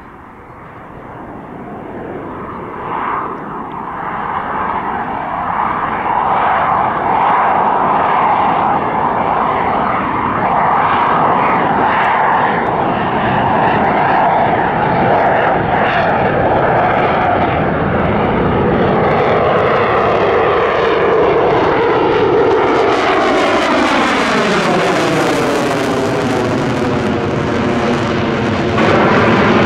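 Jet noise from a General Dynamics F-16AM Fighting Falcon's Pratt & Whitney F100 turbofan during a display flight. It grows louder over the first several seconds as the jet approaches, then stays loud and steady. In the last several seconds there is a falling, sweeping whoosh as it passes close by.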